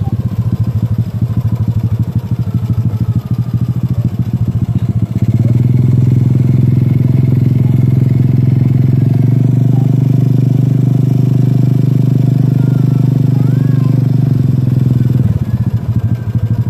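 Motorcycle engine running while riding, a loud low hum with a rough, uneven texture. From about five seconds in the engine note becomes steadier and louder, and near the end it eases off and turns rough again.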